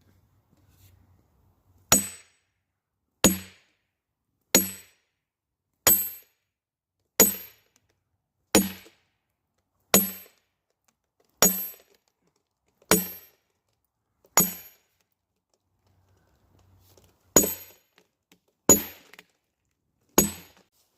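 Thirteen steady hammer blows on a metal splitting tool driven into a log, each with a short metallic ring, about one every second and a half. Ten come in a row, then after a short pause three more.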